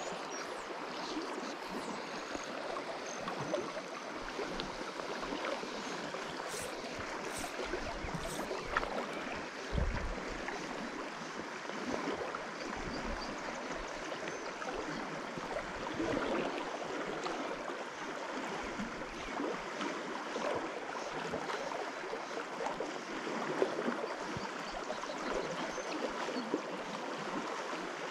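Shallow river rushing steadily over a rocky riffle, with a few light ticks about six to eight seconds in.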